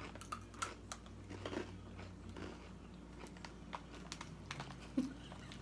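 Faint crunching and chewing of Takis Guacamole rolled corn tortilla chips: irregular short crisp cracks as the chips are bitten and chewed. A brief low sound comes about five seconds in.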